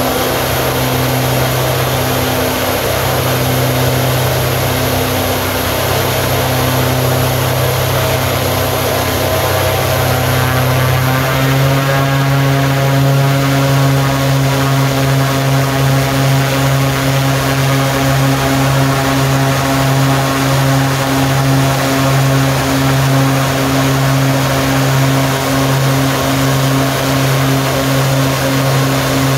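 OV-10D+ Bronco's Garrett T76 turboprop running on the ground during an engine trim run. About eleven seconds in the engine note changes as power is adjusted: the low propeller hum grows stronger and steadier and a high whine fades, then it holds at the new setting.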